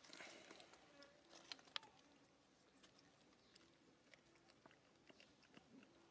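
Near silence: faint outdoor ambience with a few scattered soft clicks and rustles, most of them in the first two seconds.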